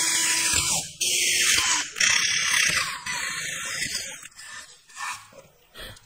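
Cordless drill boring a row of holes through a wooden box lid, in about four short runs of roughly a second each, stopping about four seconds in.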